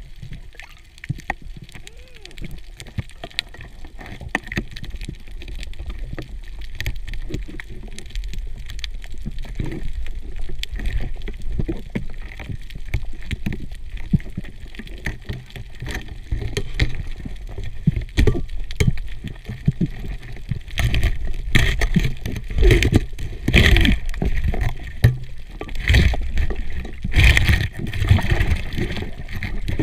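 Underwater scuffle as heard through a camera housing: irregular clicks and knocks over a low rumble, with louder rushing bursts of noise in the last third, as a diver works a spear shaft at a grouper wedged in a reef hole.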